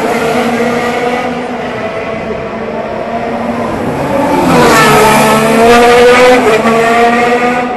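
Formula 1 cars' 1.6-litre turbocharged V6 hybrid engines running past at racing speed. One car fades away, then another comes in about four and a half seconds in, rising in pitch as it accelerates, with a sudden drop in pitch near six and a half seconds as it changes gear.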